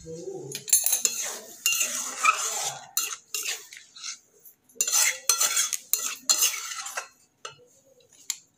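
Metal spatula scraping and stirring in a metal kadai of watery curry, in a run of short, uneven strokes that die away near the end.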